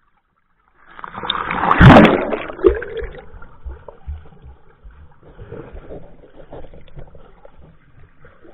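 Water splashing and rushing over an action camera as it is plunged underwater: a loud surge about a second in, peaking near two seconds. It is followed by muffled underwater sloshing and low knocks, heard through the camera's waterproof case.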